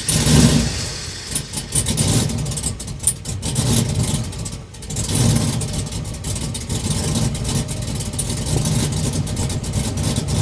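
Cammed Chevrolet Silverado LS V8, just started and idling with its exhaust in quiet mode, heard from inside the cab. It flares up loudly as it catches, then settles into an uneven, choppy idle typical of a big cam, dipping briefly about halfway through.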